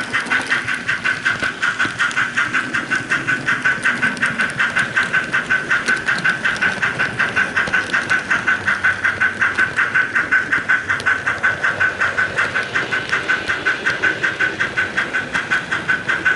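HO-scale model train running on the layout track: a steady whir with a rapid, even pulse of about five beats a second.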